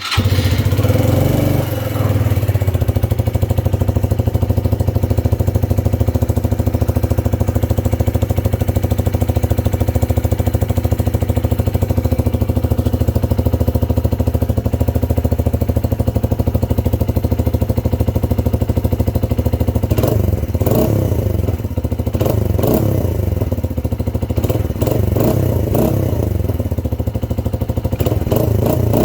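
Motorcycle engine idling steadily through a Megaton cafe-racer muffler, with its exhaust note cutting in abruptly. From about twenty seconds in, the running grows rougher and more uneven.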